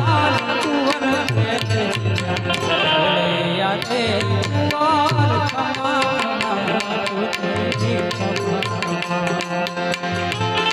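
Music of a Gujarati folk halardu (lullaby): a tabla keeping a steady rhythm under a melodic line with wavering, ornamented pitch.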